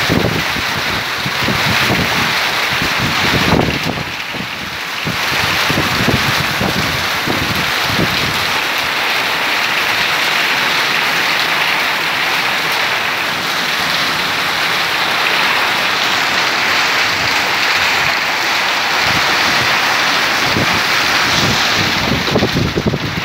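Heavy rain falling, a steady hiss. Wind buffets the microphone in gusts during the first several seconds and again near the end.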